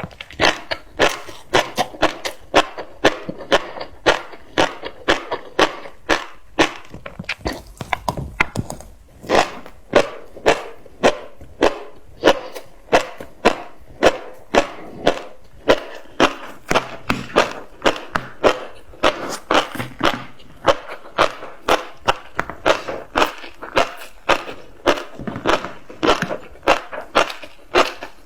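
Close-miked chewing of tobiko (flying fish roe), the tiny eggs crunching and popping between the teeth in a steady run of sharp clicks, several a second.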